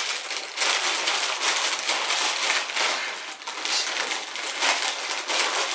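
Plastic bag of crisps crinkling and rustling in a hand, in a quick irregular string of crackles, as crisps are taken out and eaten.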